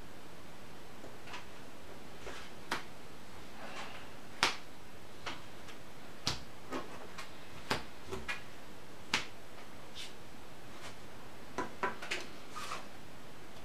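Trading cards being picked up, handled and laid down on a plastic-covered table: a dozen or so scattered light taps and clicks at uneven intervals.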